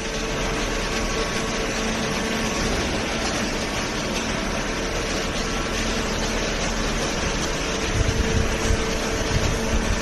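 Cardboard baler line running: a steady mechanical hum with a constant tone. A few low thumps come in from about eight seconds in.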